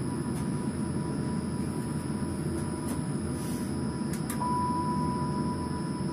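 Tram cab at a standstill: a steady low electrical hum with a thin high whine from the tram's equipment and a few faint ticks. About four seconds in, just after a button is pressed on the driver's console, a steady single beep starts and holds for over a second.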